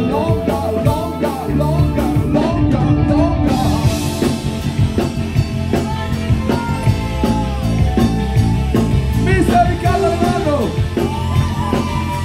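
Live rock band playing loudly: singing over electric guitar, bass, keyboard and drum kit. The bass fills out a little over a second in, and the drums and cymbals grow fuller about three and a half seconds in.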